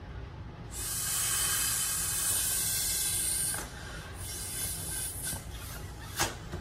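Air rushing through the neck of a latex balloon as it is blown up: a long steady hiss for about three seconds, then weaker, shorter hisses, and one sharp tap near the end.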